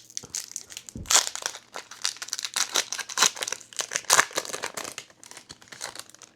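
Trading card pack packaging crinkling and tearing as it is opened by hand, with a dense run of crackles and two louder rips, about a second in and about four seconds in.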